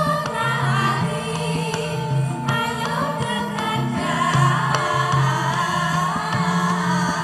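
A chorus of Javanese sinden (female singers) singing together over an instrumental accompaniment, with steady low bass notes and sharp drum strokes.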